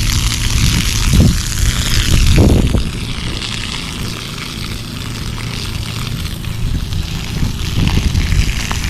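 Garden hose on its flood setting pouring water onto lawn turf to soften a high spot, heard as a steady hiss. Under it runs a low rumble that comes in gusts, strongest about a second and two and a half seconds in.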